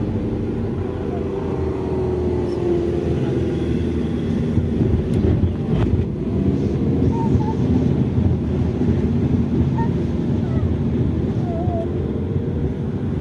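Car engine and road noise inside the cabin as the car climbs a steep hill road. The engine note holds steady, its pitch drifting slowly up and down.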